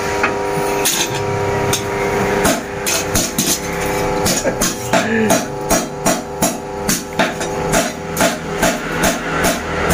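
Hand hammer striking a curved steel blade held in tongs on a small steel anvil. A few blows at first, then a steady run of about two to three metallic strikes a second.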